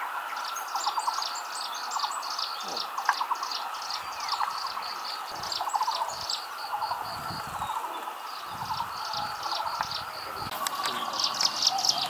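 Small songbirds calling: a long run of quick, high chirps repeated many times, with lower trilled phrases coming in about once a second.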